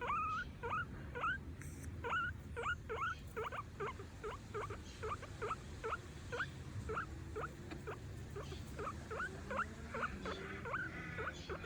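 Guinea pig wheeking while begging for food: a long run of short, rising squeaks, about three a second.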